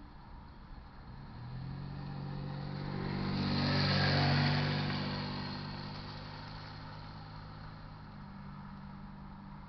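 A car drives past on the road over the railroad crossing. Its engine hum and tyre noise swell to a peak about four seconds in, then fade away, and a fainter engine hum carries on after it.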